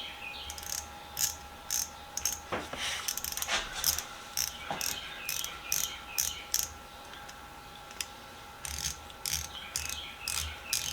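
A freshly cleaned and oiled 1/4-inch drive ratchet being worked back and forth, its pawl clicking in several quick runs with short pauses between. The mechanism is running smoothly.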